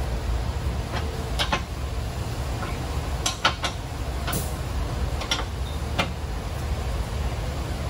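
Scattered sharp metal clicks and clinks of a hand wrench working the rear suspension adjustment bolts during a wheel alignment, several coming in quick succession around the middle, over a steady low shop hum.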